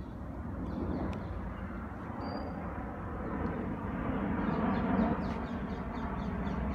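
Jet airliner flying over, a steady low rumble that slowly grows louder, with a short bird whistle about two seconds in.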